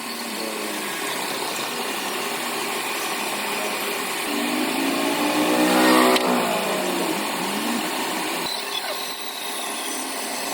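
An engine or motor running over steady mechanical noise; a humming tone climbs to its loudest about six seconds in, then falls in pitch and fades.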